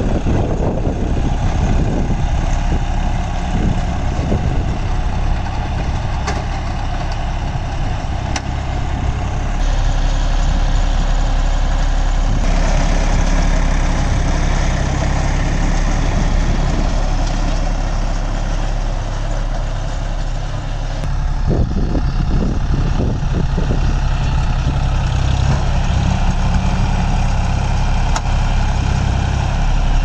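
John Deere tractor's diesel engine running steadily while powering a Redlands round baler as it picks up and bales straw. A short run of knocks from the working machinery comes about two-thirds of the way through.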